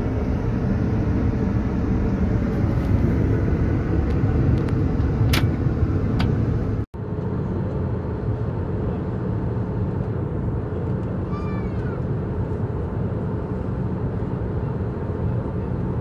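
Steady cabin noise inside an Airbus A320: the rumble of engines and rushing air. It drops out for an instant about seven seconds in, and about four seconds later a short high cry falls in pitch.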